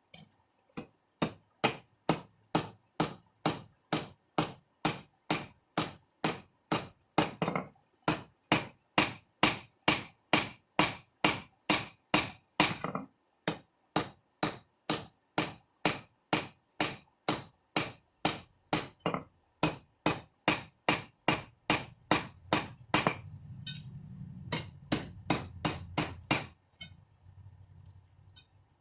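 A 32-ounce ball peen hammer forging a rebar knife blank, ringing blows at a steady rate of about three a second. The blows pause briefly about halfway through and again near the end, and a low rumble runs under the later blows.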